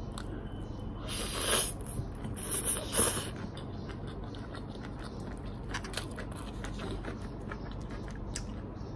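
Eating hakka noodles off a fork: a few short, loud slurps between about one and a half and three seconds in, then soft chewing with faint small clicks.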